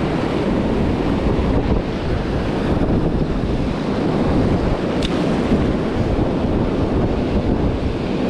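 Wind buffeting the microphone over the steady wash of breaking surf, with a single brief click about five seconds in.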